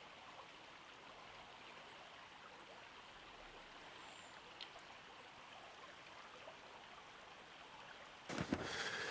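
Faint, steady rush of flowing stream water. Louder, irregular rustling begins near the end.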